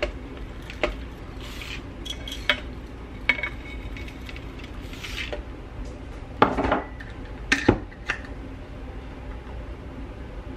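Kitchen handling sounds: rolled oats scooped with a plastic measuring cup and poured into a plastic food processor bowl, with scattered clicks and knocks of the cup and bowl, the loudest a clatter about six and a half seconds in.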